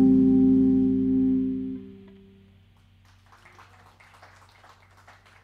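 Final held chord of electric guitar and electric bass ringing out and dying away, stopping about two seconds in. It is followed by faint, scattered clapping.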